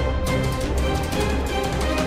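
Background music: held notes over a steady percussive beat.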